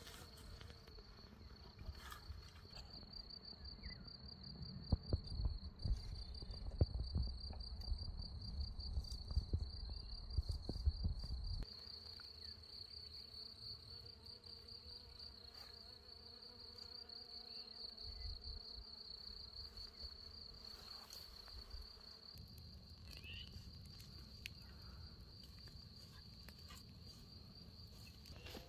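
A steady, high-pitched insect trill, like a cricket's, runs throughout. In the first half, rustling and sharp cracks of dry branches being gathered are the loudest sounds, and they stop abruptly about twelve seconds in.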